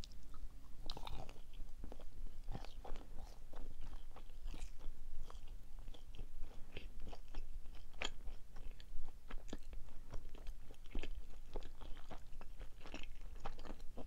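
Close-miked chewing of a chocolate-coated marshmallow: irregular small crunchy clicks of the chocolate shell and soft wet mouth sounds.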